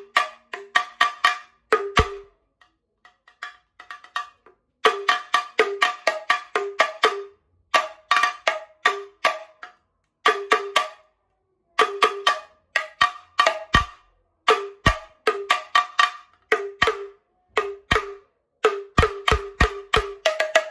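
Percussion playing fast rhythmic phrases of sharp, ringing pitched strokes, broken by short pauses, with a few deep strokes that drop in pitch.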